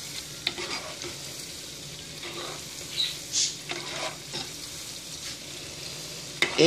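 Battered chicken pieces deep-frying in a pot of hot oil, a steady sizzle, while a slotted spatula stirs them, with a few brief scrapes and knocks of the utensil against the pot.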